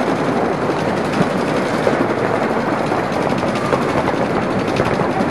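Several paintball markers firing rapidly at once, a dense, continuous rattle of shots.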